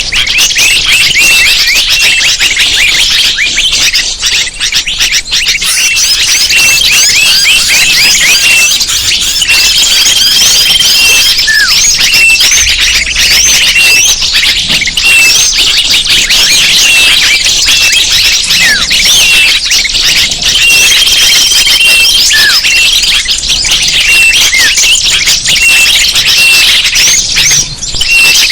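Bird-lure (pikat) recording: a dense, continuous chorus of many small birds' rapid chirps and twitters, with short whistled notes repeating throughout and a few longer held whistles, played loud to draw birds in.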